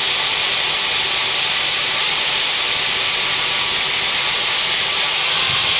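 Handheld angle grinder running steadily with its disc held against the steel edge of a lawn mower blade, a continuous high hiss of abrasive grinding metal. The edge is being ground down to remove a nick.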